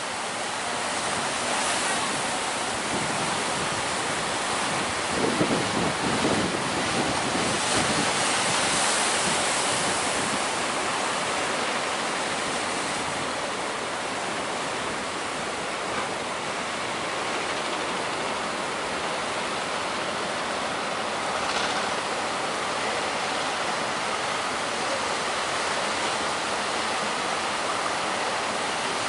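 Big sea waves breaking on the shore with strong wind, a steady rushing noise with wind buffeting the microphone.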